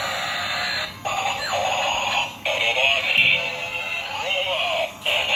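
Battery-operated bump-and-go toy train playing electronic music and synthetic singing through its thin, tinny built-in speaker, with short breaks about a second in, midway and near the end.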